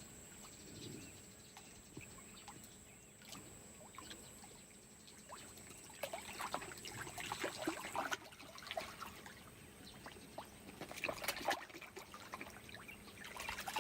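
Faint water trickling into a pond, with clusters of small splashes about six seconds in and again near the end.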